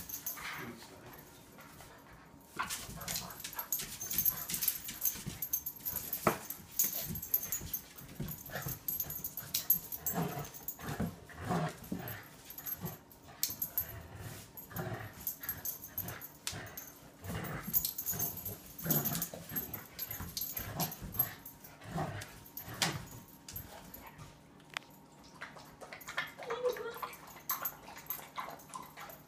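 A German shepherd puppy and a Labrador growling and scuffling in a tug of war over a plush toy, in short, uneven bursts. It goes quieter in the last few seconds.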